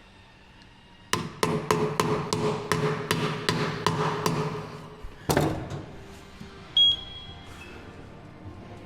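A hammer tapping a wheel weight onto a wheel rim during tire balancing: a fast even series of sharp metallic taps, about three a second for some four seconds, each one ringing. A short high beep follows a little later.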